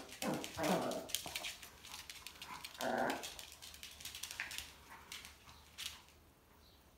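Small spitz dog growling and whining in short bursts as it plays with a ball, the loudest about three seconds in. Many light clicks and taps come from its claws and the ball on the hard floor.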